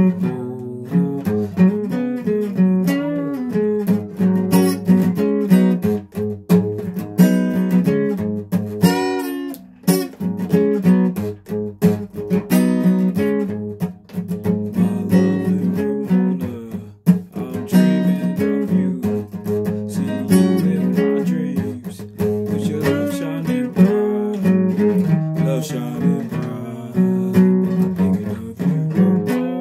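A guitar being played: a continuous run of chords and single notes.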